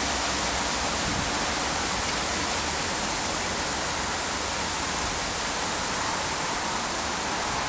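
Steady rushing noise of wind ahead of an approaching storm, blowing through the trees and across the microphone.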